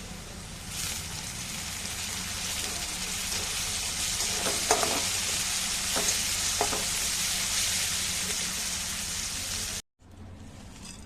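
Food sizzling as it fries in a pan while being stirred. The steady sizzle swells about a second in, with a few sharp knocks around the middle, and cuts off abruptly near the end.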